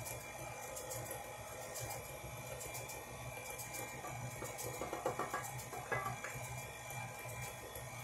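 KitchenAid stand mixer running steadily, its paddle beater turning through cookie dough as flour is added. A couple of short knocks come about five and six seconds in.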